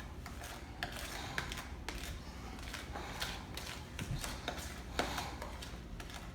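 Vanilla wafer cookies being put into a baking pan by hand: irregular light clicks, taps and rustles.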